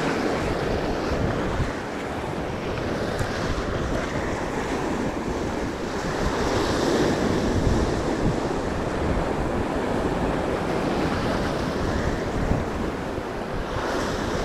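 Sea waves washing and breaking against a rock ledge, the wash swelling and easing, with wind buffeting the microphone.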